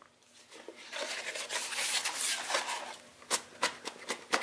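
Hands rubbing and scraping cardboard packaging while working a snugly fitted small box out of a cardboard product box, followed by a few sharp taps and knocks of cardboard near the end.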